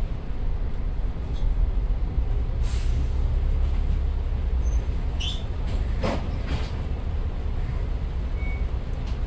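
Double-decker bus's engine running with a steady low rumble, heard from inside the upper deck as the bus pulls into a stop. Short air hisses, typical of air brakes, come about three seconds in and again about five to six seconds in.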